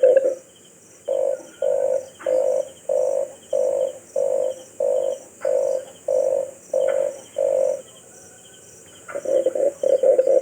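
Red collared dove calling: a series of about eleven evenly spaced low coos, then after a short pause a faster run of notes near the end.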